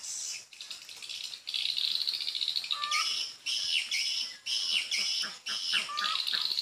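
Swiftlet chirping: fast, trilled calls repeating in short bursts, with a lower chirp about three seconds in and again near the end.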